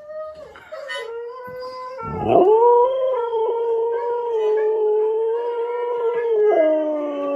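Siberian husky howling: one long, steady howl that starts softly, swells about two seconds in, holds its pitch, then drops lower near the end.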